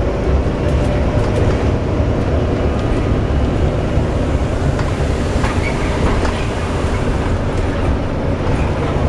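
Volvo B9TL double-decker bus under way, a steady low rumble with a faint whine over it and scattered rattles: the drive axle noise typical of a bad axle.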